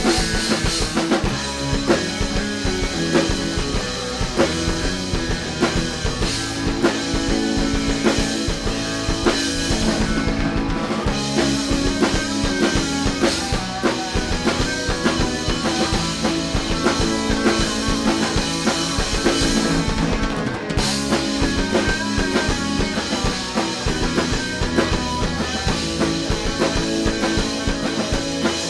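Rock band playing live, with drum kit and guitar over a steady beat.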